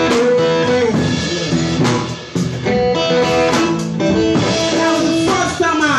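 Live blues band playing: electric guitar lines with sliding, bending notes over a drum kit.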